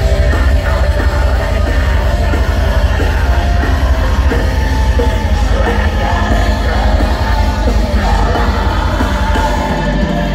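Black metal band playing live, loud and dense: distorted guitars and drums with harsh yelled vocals.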